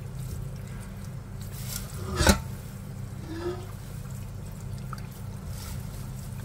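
Water running and dripping through a stainless steel strainer of dried taro leaves as a hand tosses the leaves to rinse them. A single sharp knock comes about two seconds in.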